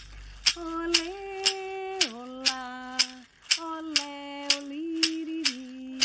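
A hand-shaken wooden maraca keeps a steady beat, about two shakes a second. A woman sings a slow melody in long held notes over it, starting about half a second in.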